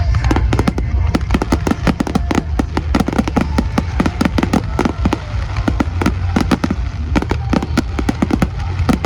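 Fireworks going off in a rapid barrage: many sharp bangs and crackles, several a second, over a continuous low rumble.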